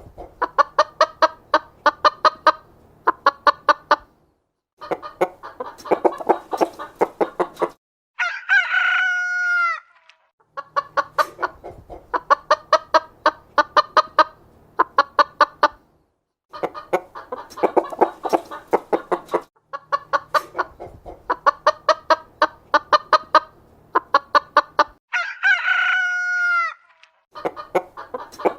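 Chickens clucking in fast runs of short, repeated calls, about five a second, that start and stop abruptly. A rooster crows twice: about eight seconds in and again near the end.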